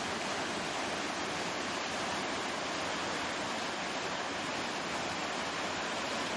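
Steady rushing of a large whitewater rapid, with no change in level.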